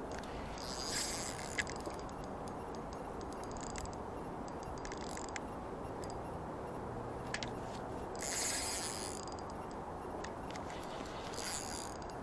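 Fishing reel and drag at work while a hooked salmon is fought: three short noisy bursts, about a second in, around two-thirds through and near the end, with a few sharp clicks, over a steady low rush.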